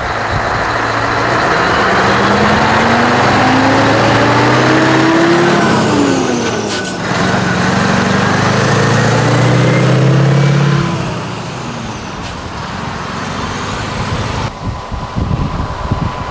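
Scania V8 truck engine pulling away under load, its pitch climbing, dropping at a gear change about seven seconds in, then climbing again through the next gear before it fades as the truck moves off about eleven seconds in.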